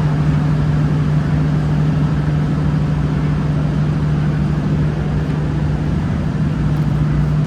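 Mobile generator set engine running steadily under load, a constant drone with a strong low hum.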